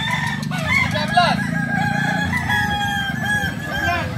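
Several Kukuak Balenggek roosters crowing at once, their long, stepped crows rising, falling and overlapping one another, over a low steady hum.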